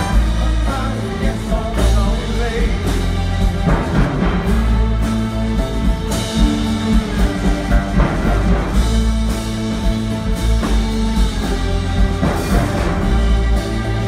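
Symphony orchestra playing a rock-song arrangement live, strings and brass over a steady, heavy bass.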